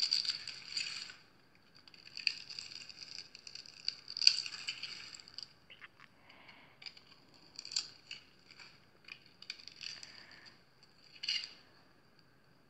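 Dry bar soap, cut into a fine grid of tiny cubes, crumbling and crunching as hands squeeze and break it apart. Crisp crackly bursts come and go, the loudest about four seconds in and again near the end.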